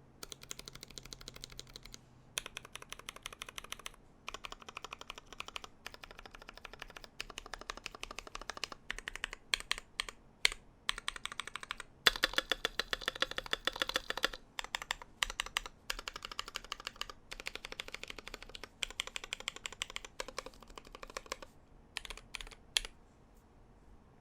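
Typing on an IDOBAO ID80 custom mechanical keyboard with lubed Glorious Panda tactile switches on an aluminium plate: runs of quick keystrokes broken by short pauses, busiest about halfway, stopping about a second before the end.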